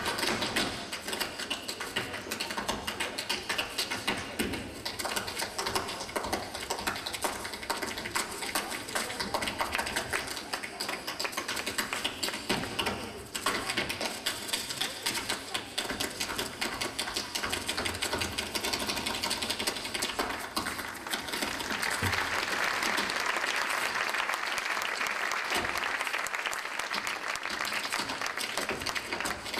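Rapid tap-dance footwork: the metal taps of tap shoes striking the stage floor in quick, dense runs. About three-quarters of the way through, audience applause rises under the taps.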